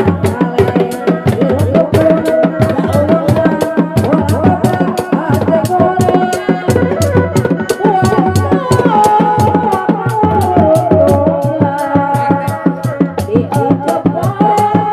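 Sundanese reak music: a dogdog drum ensemble beating a fast, even rhythm of low thuds and sharp strikes under a wavering melody that glides up and down in pitch.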